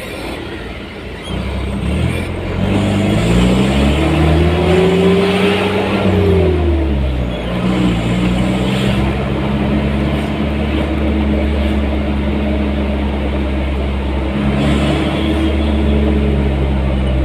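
Road vehicle engine pulling away. Its note rises for a few seconds, drops about seven seconds in, then holds steady as the vehicle cruises.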